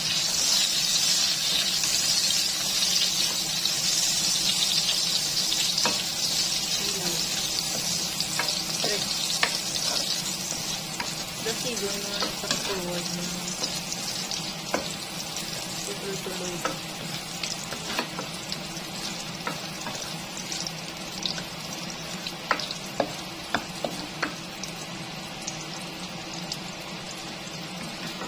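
Sliced chorizo de Bilbao sizzling in hot oil in a pan while a spatula stirs and turns it, with scattered clicks and pops. The sizzle is loudest at first and grows gradually quieter.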